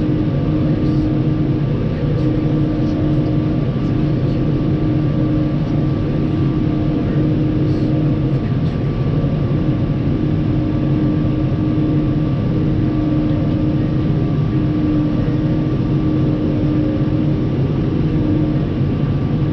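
New Holland TX62 combine harvester running steadily: a constant engine and machinery drone with a steady whine above it.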